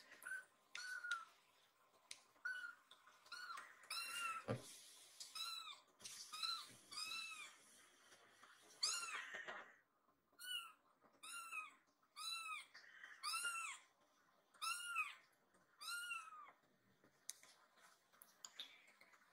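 Tabby kitten mewing over and over, short high calls about once a second, each rising and then falling in pitch: a lost kitten crying as it searches for its companion.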